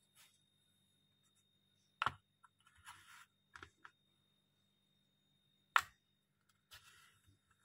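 Wooden jigsaw puzzle pieces being set into a wooden puzzle tray: two sharp clacks, about two seconds in and again near six seconds, each followed by light scraping and a few small taps as pieces are slid and pressed into place.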